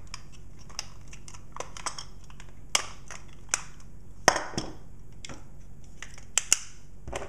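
Die-cast metal and plastic toy parts of a Legacy Megazord's Mastodon zord clicking and knocking as they are pulled apart and set down on a wooden table: a scatter of sharp clicks, the loudest about three, four and six and a half seconds in.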